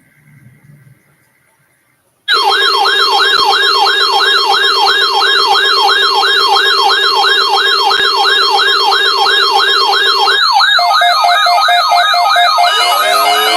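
Loud electronic siren tone starting suddenly about two seconds in: a fast rise-and-fall warble, about three to four sweeps a second, over a steady low tone. About ten seconds in the low tone drops out and a steady higher tone joins the warble, and more sweeping tones pile in near the end.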